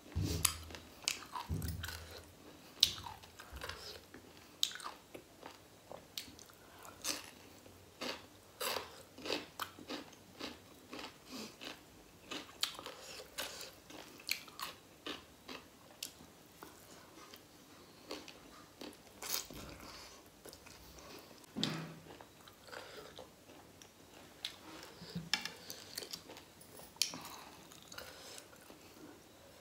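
A person eating pork sekuwa and raw cucumber, chewing and biting with many irregular crunches and sharp mouth clicks.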